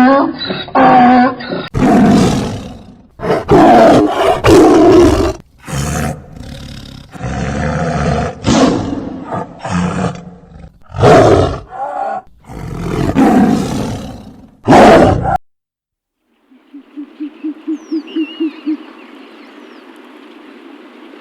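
Large animal giving a series of loud roars and growls. After a brief silence, a fast run of low hoots, about four a second, with a faint bird chirp.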